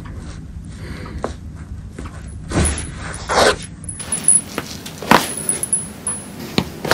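Hands and clothing rustling against a treatment table during a neck (cervical) adjustment, with a few faint clicks and one dull thud about two and a half seconds in. The neck gives no clear loud crack.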